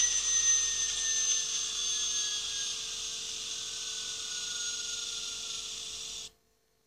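TTS DCC sound decoder in an N gauge Class 40 model playing the English Electric diesel's engine and turbocharger whistle through its small speaker. The whistle winds down, falling slowly in pitch and fading, then cuts off suddenly about six seconds in.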